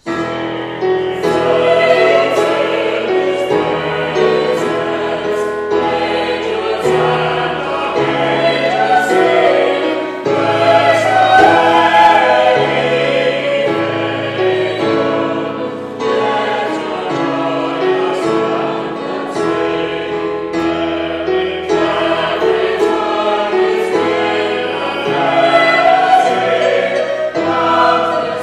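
Small mixed choir singing a carol in parts, accompanied by a digital piano.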